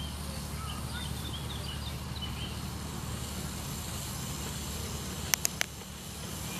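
Miniature steam locomotive hauling a passenger train slowly past: a steady low rumble of the train on the track, with three sharp clicks about five seconds in.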